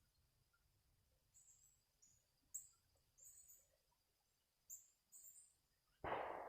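Faint, short, high-pitched bird chirps at irregular intervals, about six in all. Near the end a sudden louder rushing noise starts and begins to fade.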